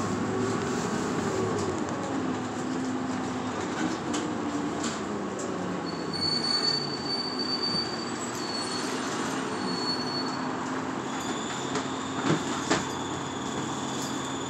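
Route bus running, heard from inside: steady engine and road rumble with a drivetrain whine that rises and then falls in the first couple of seconds. A thin, high-pitched squeal comes and goes in the second half.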